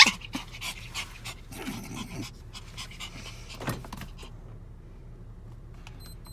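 Yorkshire terrier panting in quick, short breaths, thinning out in the second half.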